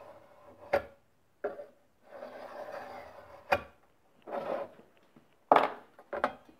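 Workbench handling noises: soft rubbing and scraping of material and tools, broken by several sharp knocks, the loudest about two-thirds of the way through.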